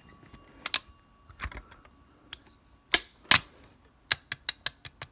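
Sharp clicks and knocks of hard objects being handled, ending in a quick run of about six light clicks a second. A faint steady ringing tone fades away in the first half.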